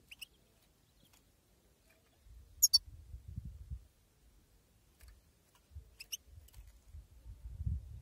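European goldfinch giving short, sharp chirps: a faint one at the start, the loudest about two and a half seconds in, and another about six seconds in. Faint clicks and a low rumble run between them.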